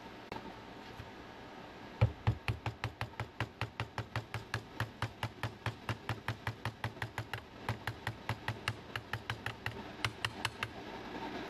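A metal tool tapping lightly and rapidly on the top of a fuel injector, knocking a new filter basket into its inlet. There are about four to five even taps a second, starting about two seconds in and stopping shortly before the end.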